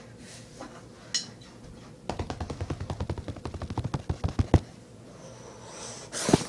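Drumsticks tapping in a fast roll, about ten strokes a second for two and a half seconds starting about two seconds in, then a single sharp knock near the end.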